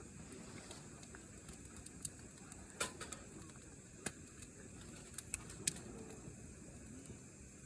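Campfire burning: a faint steady crackle with several sharp, isolated pops and snaps, the loudest about three seconds in and another just before the six-second mark.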